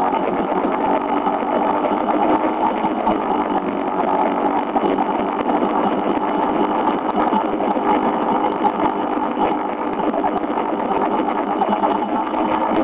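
Motorcycle engine running at a steady cruise, heard from the moving bike, with a constant rushing noise over it.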